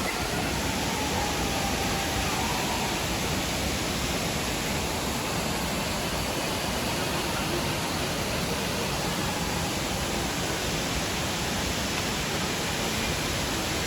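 Steady roar of rushing, falling water from a waterfall, an even hiss with no changes.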